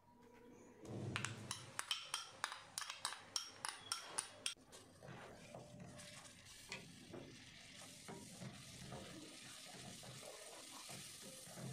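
A metal spoon scrapes and taps blended tomato-onion paste out of a glass bowl into a wok of hot butter and spices, with a quick run of clicks. Then the paste sizzles softly and steadily as a spatula stirs and scrapes it around the wok.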